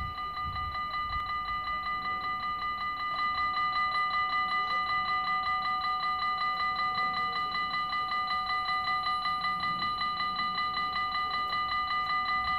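Dutch automatic level-crossing warning bells ringing in rapid, even pulses, signalling an approaching train while the half barriers lower. The ringing gets louder about three seconds in.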